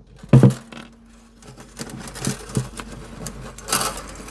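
Bridge pins of an acoustic guitar being pried up with the pin-pull notch of a string winder: small clicks, scrapes and rattles of pins and tool against the bridge, with a short knock about half a second in.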